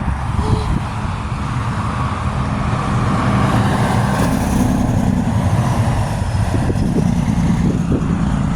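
Motor vehicle engine running close by: a steady low rumble with an engine hum, growing slightly louder.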